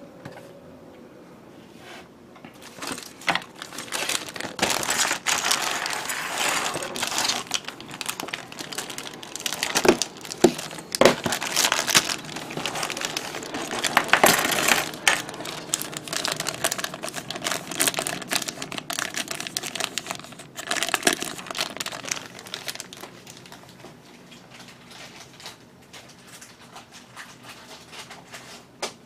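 Thin clear plastic parts bag crinkling as it is handled and emptied, starting about two seconds in and dying down near the end, with scattered sharp clicks of plastic parts and runners.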